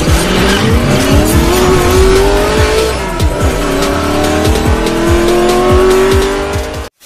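Kawasaki Ninja RR two-stroke single with a ported engine and AL-TECH exhaust revving hard: the pitch climbs for about three seconds, drops briefly, then climbs again before cutting off abruptly near the end. Music with a heavy deep beat plays underneath.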